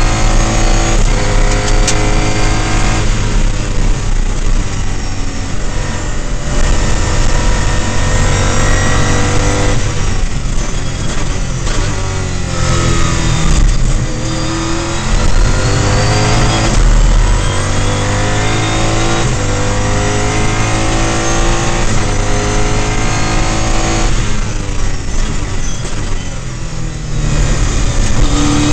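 Mosler MT900 race car's V8, heard from inside the cockpit at racing speed, revving hard up through the gears. The pitch climbs and drops back at each gear change, with stretches of falling revs under braking.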